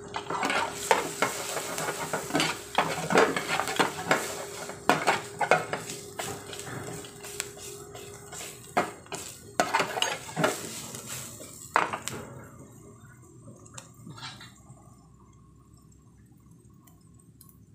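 A metal ladle scraping and clinking against a kadhai as onions, garlic, green chillies and peanuts are stirred, sizzling in hot oil. The stirring stops about twelve seconds in, leaving only a faint sizzle and a few light knocks.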